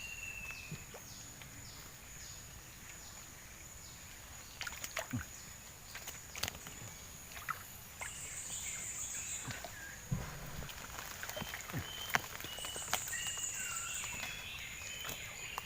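Outdoor riverside ambience: a steady high-pitched insect drone, with louder bursts of buzzing twice, short chirping calls, and scattered clicks and knocks.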